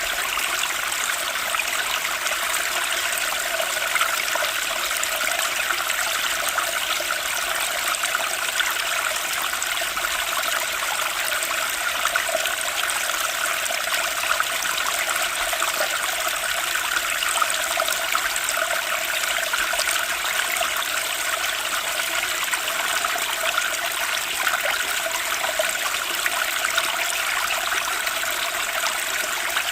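Flowing water running steadily, like a small stream or trickling cascade, with an even rushing and splashing that does not change.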